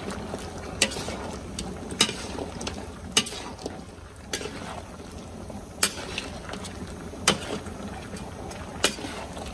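Crocodile meat and skin cooking in a large steel wok over a flame, giving a steady rushing, bubbling noise. A metal utensil clinks sharply against the wok about six times, every second or two.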